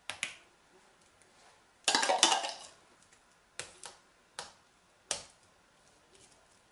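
Metal spoon clinking against a glass jar and a metal cake ring while peach purée is spooned out and spread. Two quick clinks open it, a loud rattle of scraping and knocking comes about two seconds in, then four single clinks follow.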